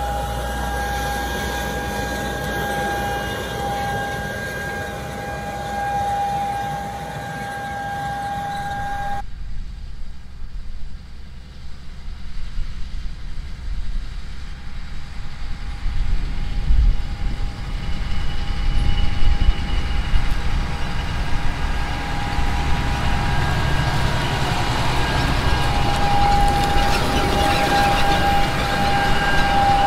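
Fendt 1050 tractor's six-cylinder turbocharged diesel running under load as it pulls a John Deere N530C air seeder, with a steady high whine over the engine. About nine seconds in the sound changes abruptly, then the rig grows louder as it approaches.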